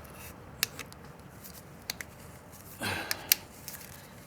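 Driveshaft parts being handled and fitted together: a few sharp metallic clicks and, near the three-second mark, a brief scraping rub.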